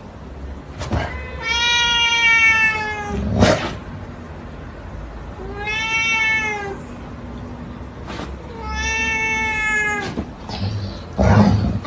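A cat meowing: three long, drawn-out meows, with a few sharp knocks in between them.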